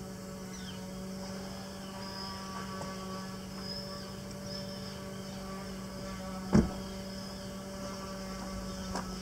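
A steady droning hum with a few fainter overtones, and a single sharp knock about six and a half seconds in.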